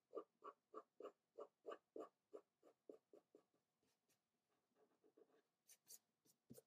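Soft graphite sketching pencil scratching on paper in quick, even shading strokes, about three to four a second, fading out about three and a half seconds in. Near the end come a few short, sharper swishes of the hand sweeping across the paper.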